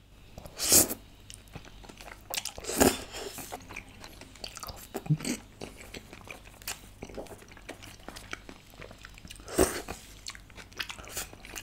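Close-miked eating of stir-fried udon noodles in black bean sauce: noodles slurped into the mouth and chewed, with wet mouth clicks. Three louder bursts come about a second in, near three seconds and near the end.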